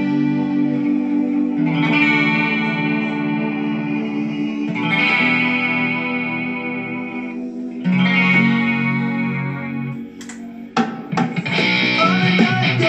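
Electric guitar, a Gibson Les Paul with EMG 81 and 85 active pickups, played through an amp: full chords struck and left ringing about three seconds each. Near the end comes a short break with a few muted scratches, then faster, busier picking.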